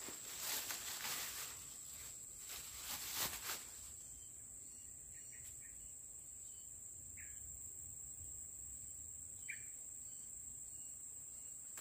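Steady high-pitched drone of insects in tropical forest. Rustling and handling noises close to the microphone in the first few seconds, then two short faint chirps later on.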